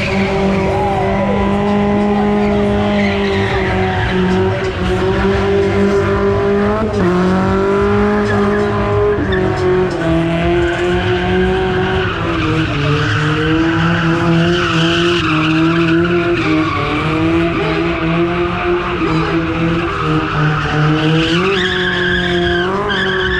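Small pickup truck's engine held at high revs, with small dips and steps in pitch, while its spinning tyres squeal and smoke in a burnout.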